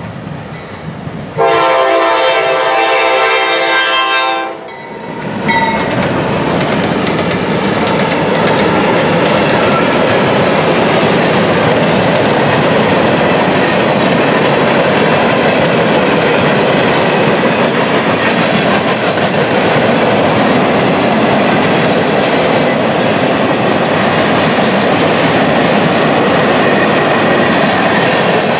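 The lead locomotive, a Norfolk Southern GE D9-44CW, sounds its air horn in one long chord-like blast that starts about a second and a half in and lasts about three seconds. Then the locomotives and the empty coil cars roll past close by: a loud, steady rumble and clatter of steel wheels on rail.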